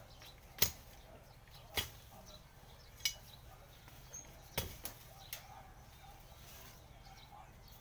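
Machete hacking at weeds and plant stalks: about six sharp chops at irregular intervals.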